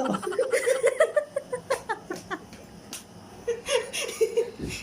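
A person laughing in quick, repeated bursts: giggling in two spells.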